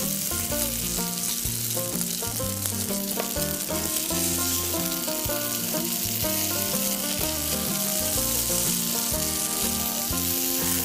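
Egg frying in oil in a miniature steel pan: a steady sizzle. It plays under instrumental background music with a bass line and changing chords.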